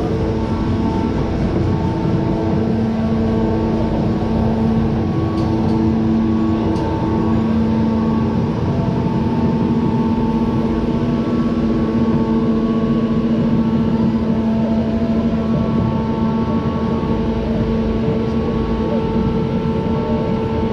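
Roller coaster lift mechanism hauling the train backwards up the incline: a steady mechanical drone made of several held tones over a rumble.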